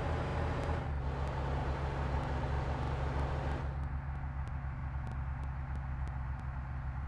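A large vehicle's engine running with a steady low hum. A layer of higher noise over it drops away about three and a half seconds in.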